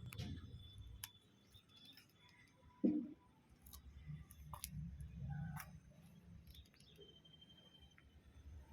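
Faint scattered clicks and ticks, with one louder short knock about three seconds in.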